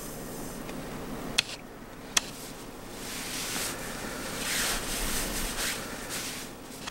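A long, breathy exhale of blunt smoke starts about three seconds in and lasts a few seconds. Before it come two short, sharp clicks.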